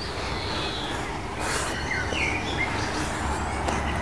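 Small birds chirping: short, scattered calls, several a second apart, over a steady background hiss.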